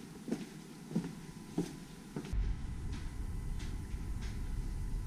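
Footsteps on stone paving, a step about every half second. About two seconds in, the sound cuts abruptly to a steady low rumble with a few fainter steps.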